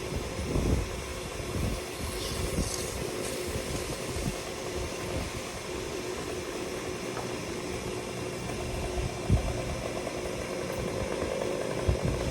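An engine idling steadily, with a few dull knocks.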